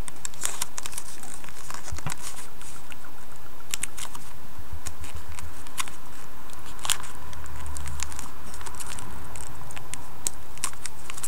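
Origami paper crinkling and crackling in the fingers as it is folded and squash-folded, in scattered short rustles with a few sharper crackles a couple of seconds apart.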